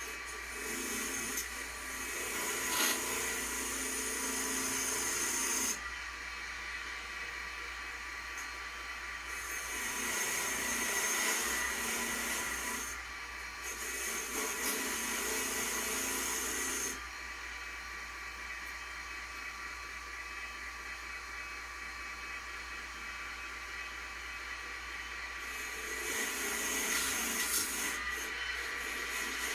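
Small power tool motor running steadily, with several stretches of louder abrasive hiss as it scours rust off metal gun parts.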